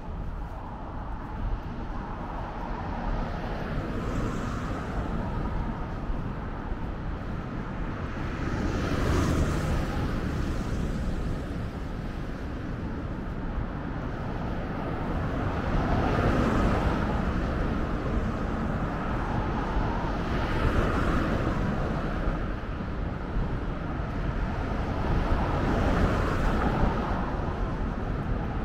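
Road traffic: a steady low rumble with cars passing one after another, each swelling and fading over a few seconds.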